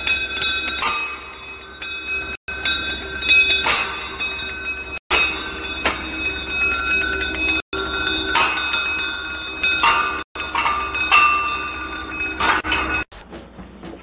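Small ring-shaped object rolling and clattering along a long metal channel, setting the metal ringing with several sustained high tones and repeated sharp clinks. A short clip of it repeats about every two and a half seconds with a brief break between repeats, and the ringing cuts off about a second before the end.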